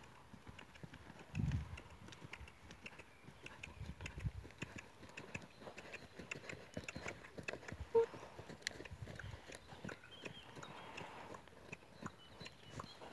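Hooves of a ridden horse cantering on a sand arena: a run of soft, irregular thuds. A brief sharp blip comes about eight seconds in.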